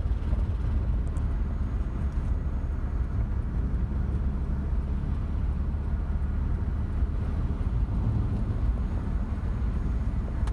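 1986 Mazda B2000 pickup's four-cylinder engine running while driving, a steady low rumble made loud and raw by a horrendous exhaust leak.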